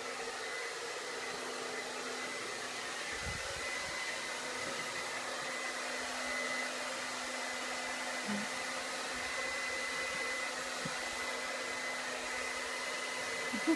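A small electric motor running steadily, with a constant rushing noise and a high steady whine, like a hair dryer or similar blower.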